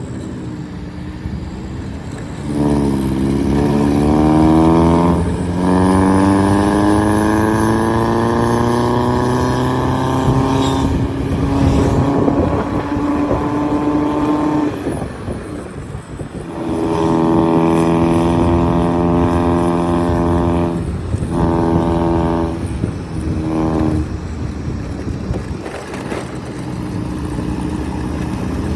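Diesel vehicle engine under load, its pitch climbing as it accelerates, with a short break about five seconds in like a gear change. Later comes a run of steady bursts that start and stop abruptly.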